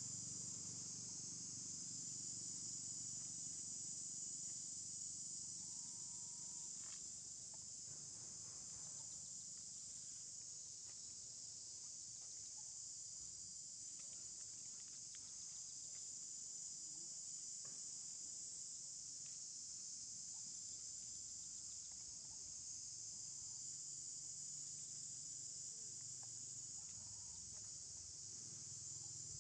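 Steady insect chorus: a continuous high-pitched buzz that never lets up, heard faintly.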